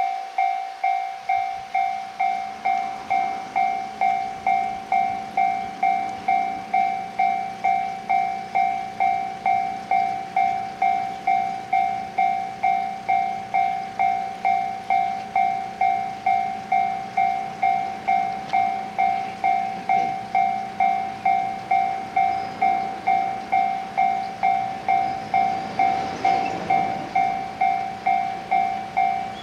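Japanese level crossing warning bell ringing steadily, an even two-tone ding about twice a second as a train approaches. Faint running noise of the approaching electric train grows under it near the end.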